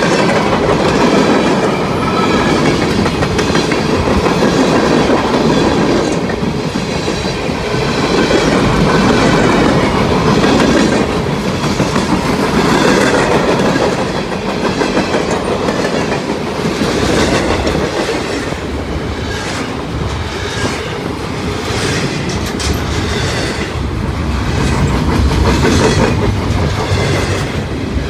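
A mixed freight train's cars rolling past at close range: a steady rumble of steel wheels on rail, with a repeated clickety-clack as the wheels cross rail joints, the clicks sharpest in the second half.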